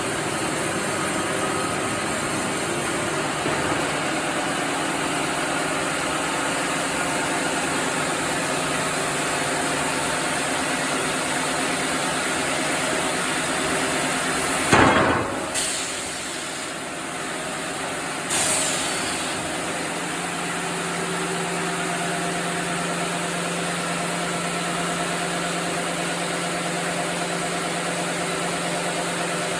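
Sawmill machinery running steadily with a constant mechanical hum, broken by a loud knock about halfway through and a second knock a few seconds later.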